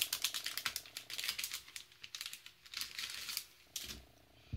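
Crinkly rustling with small tearing crackles as foam adhesive dimensionals are peeled off their backing sheet and handled against a paper card panel. The crackling is busiest for the first few seconds and dies down near the end.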